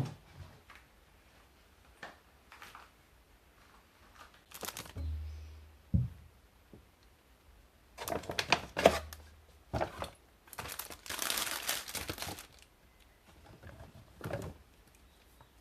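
Scattered knocks and clicks with bouts of rustling or crinkling, as things are handled. A longer rustle comes about ten to twelve seconds in.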